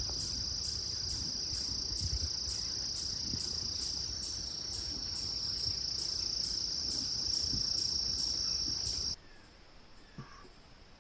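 Insects trilling: a steady high-pitched trill with a second, pulsing call above it at about two pulses a second. It cuts off suddenly about nine seconds in, leaving only faint woodland sound.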